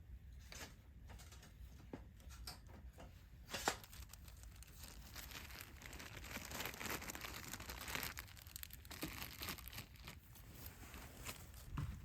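Crinkling and tearing handling noise, with a sharp click a little over three seconds in and denser crinkling through the middle.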